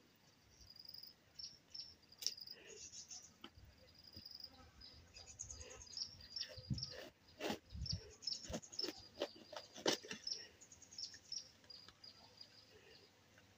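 A knife cutting through a raw head of cabbage: irregular crisp cuts, some of them sharper and louder, with high chirping in the background.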